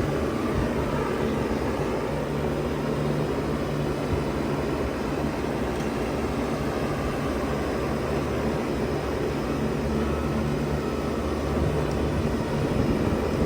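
A 2000 Bard 3-ton wall-hung heat pump running steadily in heat mode: a low compressor hum under the even rush of its fan.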